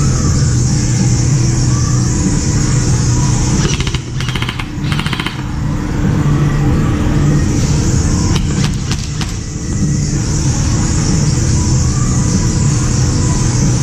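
Airsoft electric guns firing: a rapid full-auto string of clicks about four seconds in, then a few quick single shots about eight and a half seconds in, over a steady loud background din.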